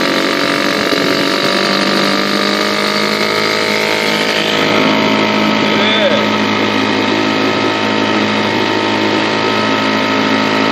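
British Seagull Century outboard motor, a single-cylinder two-stroke, running steadily under way, its pitch easing down slightly over the first few seconds.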